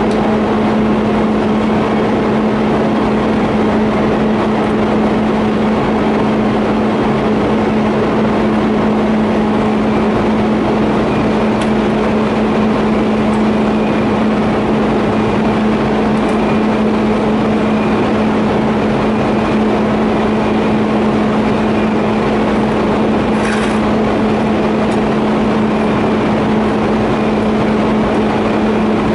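TIG welding setup running: a loud, steady hum with a dense hiss that holds unchanged throughout, and a faint tick about two-thirds of the way through.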